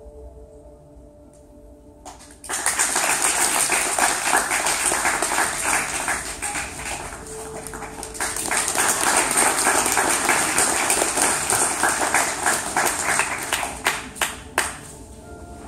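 Audience applauding, starting suddenly a couple of seconds in, easing briefly in the middle and swelling again, then dying away with a few last loud claps. Soft music with held tones plays before the applause starts and again after it.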